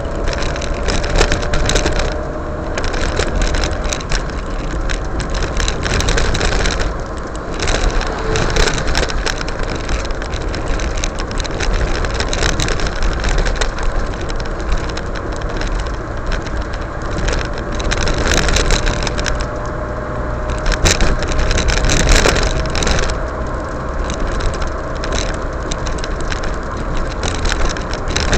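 Car driving on a wet road, heard from inside the cabin: steady tyre and engine noise with a low rumble and a faint slowly drifting hum. Many small rattles and clicks sound over it.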